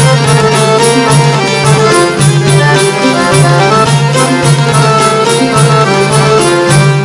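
Instrumental passage of Albanian folk music: a melody line over a steady, quick beat of about three to four strokes a second, with no singing.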